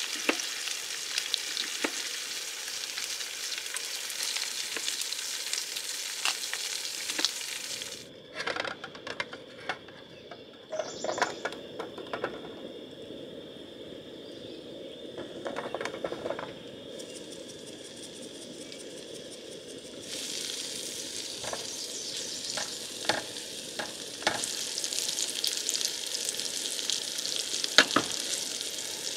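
Food sizzling in oil in a frying pan on a camp stove: bacon at first, with a steady dense hiss. About eight seconds in it drops to a quieter stretch with scattered knocks and clicks, then diced zucchini sizzles, growing louder in the second half, with sharp taps of a utensil against the pan.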